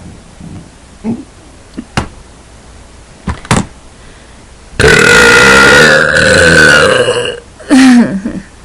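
A person's deliberate, very loud burp lasting about two and a half seconds, starting about five seconds in, after a few faint clicks. A short, loud vocal sound follows about a second later.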